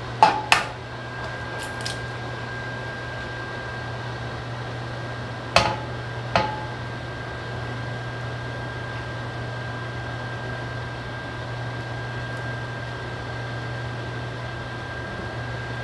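An egg cracked against the edge of a 3-in-1 nonstick frying pan: two sharp taps, then two more about five seconds later with a brief ring. A steady hum runs underneath.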